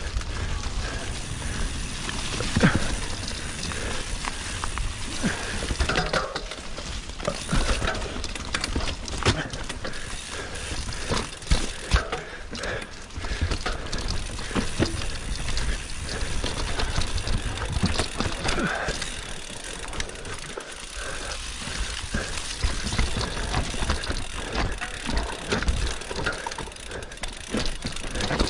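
Mountain bike being ridden along a rough forest trail: a steady rushing noise of tyres on dirt with frequent knocks, clicks and rattles from the bike over the ground.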